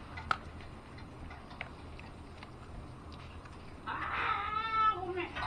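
Kibble clicking and rattling in a plastic treat-dispensing ball as a dog pushes it around with its nose. About four seconds in, a drawn-out whine from the dog that wavers and falls.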